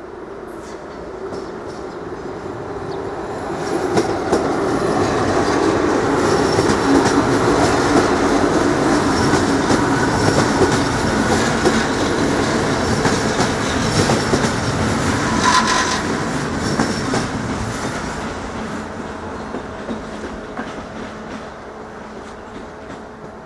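A train passing the level crossing, its wheels clattering over the rail joints. It swells over the first few seconds, runs loudest for about ten seconds with a short squeal about two-thirds of the way through, then fades away.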